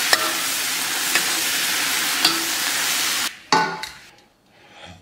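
Pork intestines and vegetables sizzling as they are stir-fried in a hot wok, a metal spatula clinking against the wok about once a second. The sizzle cuts off after about three seconds, followed by one metallic clang with a short ring, as a stainless-steel platter is set down.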